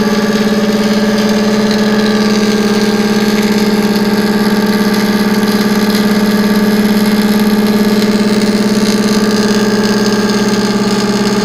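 Roller welding machine running with a steady, even hum at a constant pitch.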